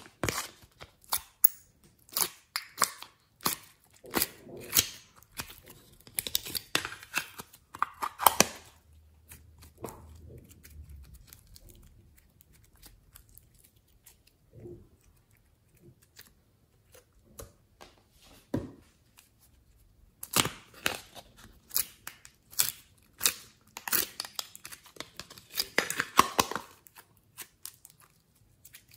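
Glossy slime being squished, pulled and stretched by hand, giving quick sticky clicks and pops. The sounds come thick for the first several seconds, thin out to a few single pops in the middle, then pick up again as the slime is stretched.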